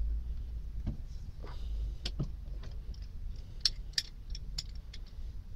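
Restored Bahco 18-inch adjustable wrench being handled on a nut: a string of short, sharp metal clicks and clinks, most of them in the second half, over a low rumble.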